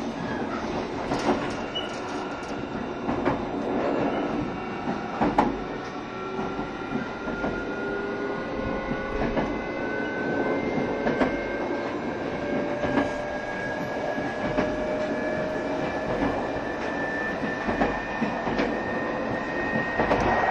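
JR Shikoku 7200 series electric train heard from on board while running. Its traction motors whine in several tones whose pitch rises slowly and steadily as the train gathers speed, with scattered clicks and knocks from the wheels on the track.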